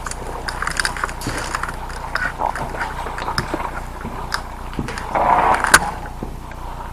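Footsteps and scuffing of gear as an airsoft player moves during a round, with one sharp crack near the end.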